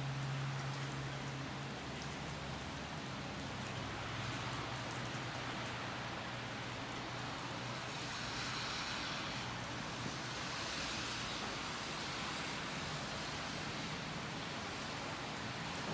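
Steady summer rain falling, an even hiss with a few swells in the middle, over a faint low steady hum that is strongest in the first two seconds.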